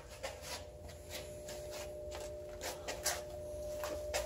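Scattered light clicks and rustles, irregular and a few per second, over a steady faint hum.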